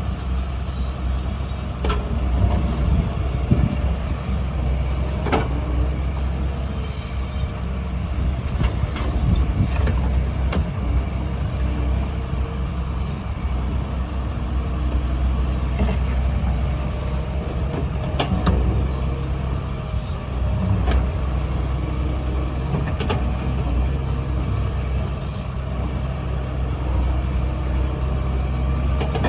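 Doosan DX140W wheeled excavator's diesel engine running steadily under working load as it digs and loads soil, with scattered short scrapes and knocks from the bucket.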